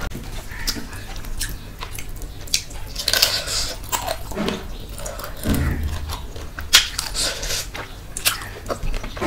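Close-miked eating sounds: wet chewing and mouth clicks, mixed with fingers working rice and curry gravy together by hand.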